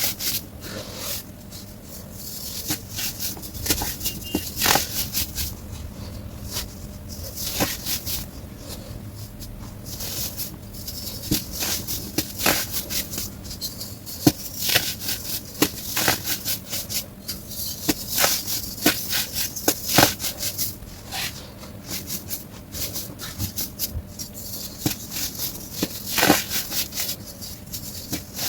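White baking soda being crushed, a dense run of irregular crunches and crackles, played back sped up.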